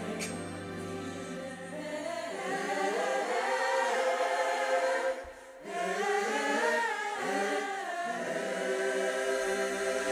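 Gospel choir singing in full harmony. About two seconds in the low accompaniment drops away, leaving the voices largely on their own, with a short break in the singing about halfway through.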